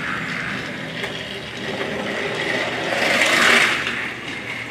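Battery-powered TrackMaster Thomas toy engine running on plastic track: its small motor whirs steadily and the wheels rattle along the rails. The noise grows louder for a moment about three seconds in.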